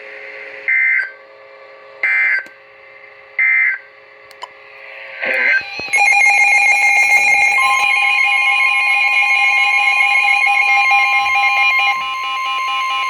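NOAA Weather Radio EAS alert signals: three short data-tone bursts about a second apart, the coded end-of-message for the previous alert. About six seconds in, a loud steady electronic alarm starts, and the single-pitched weather radio warning alarm tone joins it about a second and a half later, announcing a new warning.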